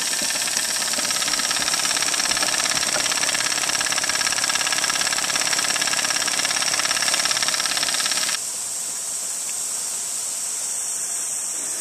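12-volt DC boat pump running steadily with a fast, even buzz as it pushes rainwater from the tank to a hose. About eight seconds in, it gives way suddenly to a quieter, steady hiss of water spraying from the hose.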